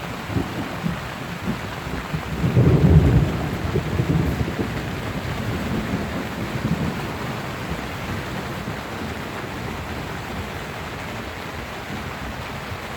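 Steady rain falling on a tent during a thunderstorm, with a peal of thunder rumbling in about two and a half seconds in and dying away slowly over several seconds.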